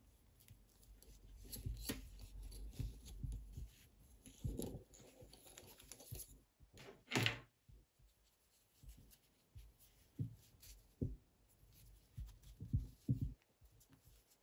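Soft handling sounds of hand knitting: bamboo knitting needles and wool yarn being worked, with faint rustles and small taps, and one louder short rustle about seven seconds in.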